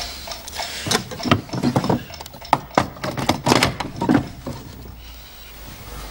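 Small wind-up alarm clock being handled: a run of irregular mechanical clicks and knocks over a few seconds, as its works are worked and it is set down on a bedside table.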